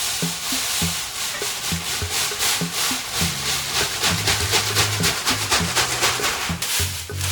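Background music with a steady beat: a low bass line, and a scratchy, brushed rhythm of evenly spaced strokes over it.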